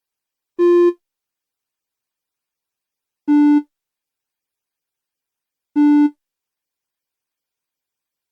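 Three short electronic beeps of a BBC micro:bit playing single notes from the play-tone block, each about a third of a second long and spaced a few seconds apart. The first note is slightly higher than the two that follow, which share one pitch.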